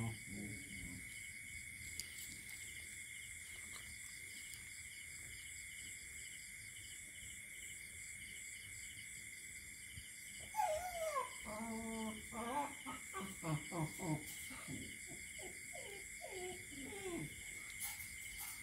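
A dog whining and whimpering: a run of short pitched cries that slide up and down, starting a little past the middle and lasting several seconds, over a steady high-pitched background hum.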